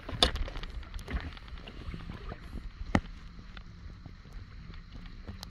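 Wind noise on the microphone over light water lapping around a kayak, with a couple of sharp knocks, one just after the start and a louder one about three seconds in.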